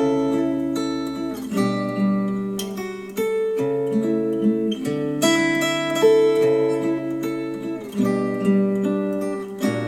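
Instrumental acoustic guitar music, plucked and strummed chords changing every second or two, played back through hi-fi bookshelf speakers.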